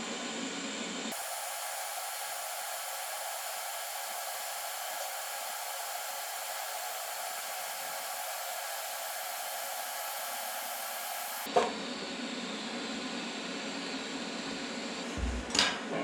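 TIG welding arc from a Vulcan Omnipro 220 torch fitted with a gas lens, a steady hiss that starts sharply about a second in and cuts off suddenly with a click after about ten seconds. A quieter steady noise runs under it, and a couple of short knocks come near the end.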